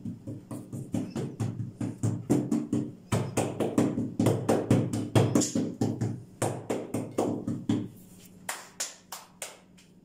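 Hands patting and pressing a soft yeast-dough round flat on a silicone baking mat: quick, soft slaps several times a second. The pats thin out and grow fainter for the last couple of seconds.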